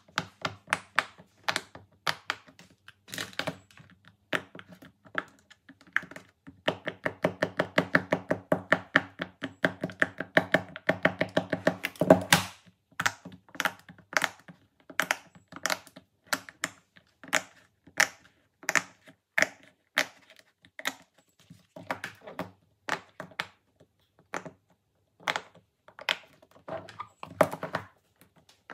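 Silicone pop-it fidget toys being pressed bubble by bubble with the fingertips, making a string of short pops. The pops come fast and close together for several seconds in the middle, and are slower and more spaced out before and after.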